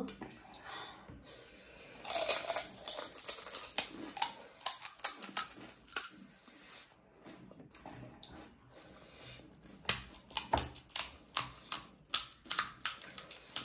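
Close-up crunching of crisp panipuri shells: many short sharp cracks as the hollow puris are broken open and chewed, coming in two runs.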